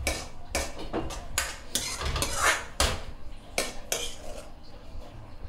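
A metal utensil scraping and clanking against a wok in quick, uneven strokes, scraping out the last of the dish.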